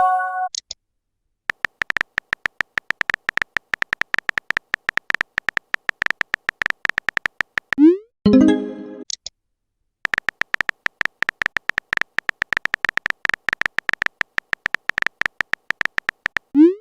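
Texting sound effects: long runs of rapid phone-keyboard typing clicks. About eight seconds in, the clicks break for a short rising whoosh and a brief chime, a message being sent and received. Another whoosh comes right at the end.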